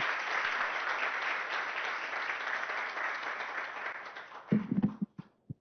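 Audience applauding, the clapping fading out about four and a half seconds in; a few short, loud bumps follow near the end.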